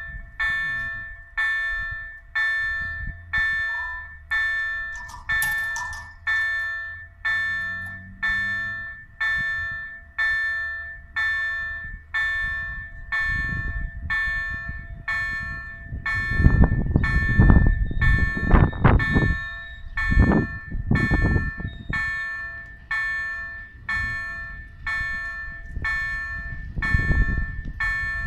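Level-crossing warning bell ringing, one decaying ding about every second, while the barriers are down and the red lights flash. Midway a low rumbling noise swells up over it, the loudest part, and comes back briefly near the end.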